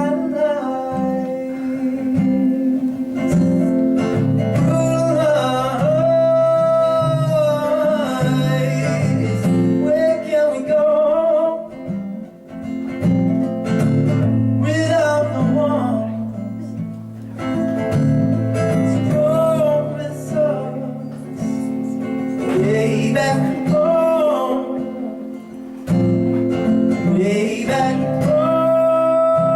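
Live acoustic folk song: a man singing over an acoustic guitar, with sustained chords under the melody.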